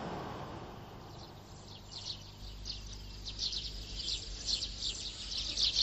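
Outdoor wildlife ambience: a soft wash of noise fades out in the first second, then rapid high chirping, many short calls a second, grows busier toward the end.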